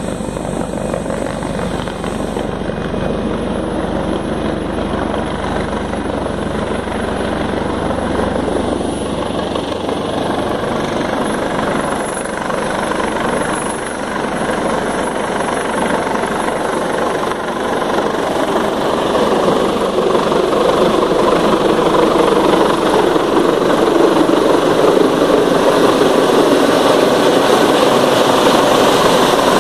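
Twin-turbine Eurocopter AS365 Dauphin helicopter approaching to land, its rotor and engine noise growing steadily louder as it closes in.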